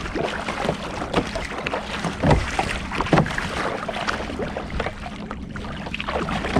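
Double-bladed kayak paddle strokes, the blades dipping and splashing into the sea in a repeated stroke-by-stroke rhythm, with water and wind noise around them.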